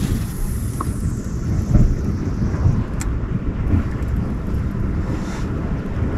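Wind buffeting the microphone in a steady low rumble. Over about the first second a high hiss fades away as fishing line pays out from a spinning reel after a cast, and a single sharp click comes about three seconds in.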